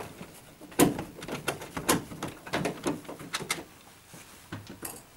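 A quick run of small clicks and taps from a hand tool and metal parts of a tumble dryer's cabinet as a side panel's retaining clip and nut are worked loose, then two more clicks near the end.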